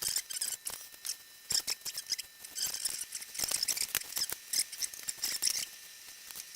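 Raw pork being cut up and handled before grinding: irregular crisp clicks and crackles, busiest in the middle and thinning out near the end.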